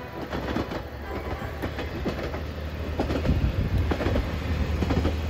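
Single-car diesel railcar passing slowly, with a steady low engine drone and repeated clacks of its wheels over the rail joints. The drone grows louder about three seconds in.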